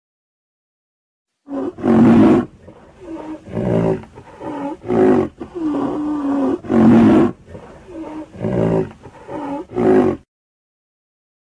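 Rhinoceros calling: about a dozen short, pitched calls in quick succession, starting about a second and a half in and stopping about ten seconds in.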